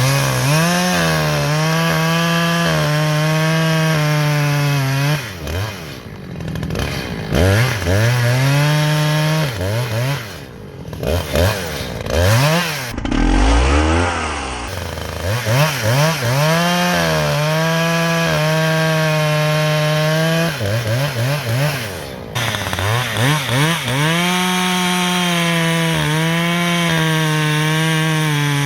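Brand-new Husqvarna 562XP two-stroke chainsaw, on its first tank of fuel, cutting firewood: it revs up to full throttle and holds there through each cut, then drops back between cuts, about six times over.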